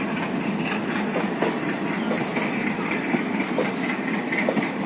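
Express passenger train rolling along the track: a steady rumble of wheels on rails with scattered clicks of wheels over the rail joints.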